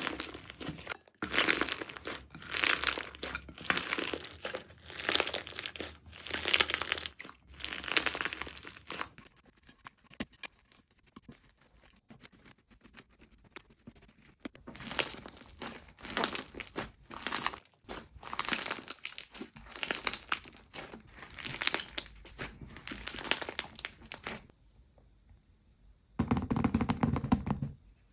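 Jelly slime being squeezed and pressed by hand, giving crackling, crinkling squishes in repeated bursts about half a second long. The squishing thins out for a few seconds near the middle, then picks up again.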